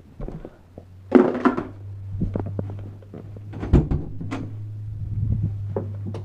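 Knocks, clicks and clatter of small objects being handled, with a steady low hum from about a second in.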